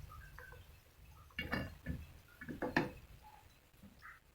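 A cooking utensil knocking and clinking against a pot of noodles a few times, loudest about a second and a half in and again near three seconds, over a faint low hum.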